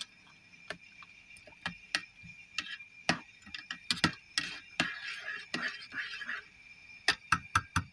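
Small metal wire-mesh strainer clinking and scraping against the side of an aluminium camping nesting pot as it stirs vegetables in boiling water: irregular sharp taps, with a brief swish of water around the middle.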